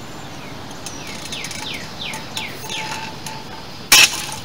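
Birds chirping in a run of quick falling chirps, then about four seconds in a single loud sharp crack as a long-seized wheel lug nut suddenly gives under a long breaker bar.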